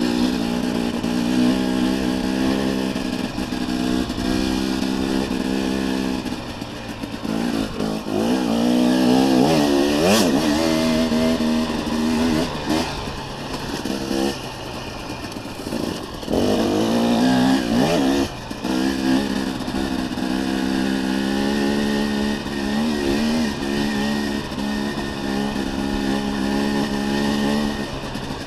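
Dirt bike engine pulling along a trail under the rider's throttle. It holds steady revs for long stretches and revs up and back down a few times, most clearly about a third of the way in and again a little past halfway.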